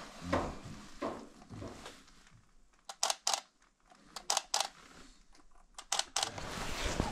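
Camera shutter firing three times, each a quick double click, about a second apart, after two soft thumps in the first second.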